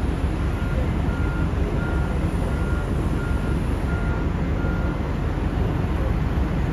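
Heavy diesel mining machinery, a Cat 6020 hydraulic shovel loading a coal haul truck, running with a steady low rumble. A backup alarm beeps about one and a half times a second and stops about five seconds in.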